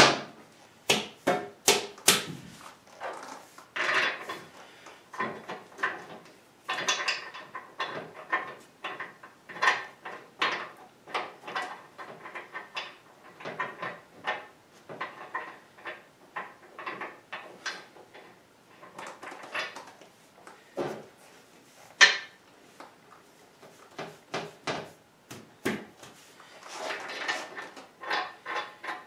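Irregular clinks, taps and knocks of small metal parts and hand tools as a fastener is fitted into a casting on a lathe bed. The loudest knocks come near the start and about two-thirds of the way through.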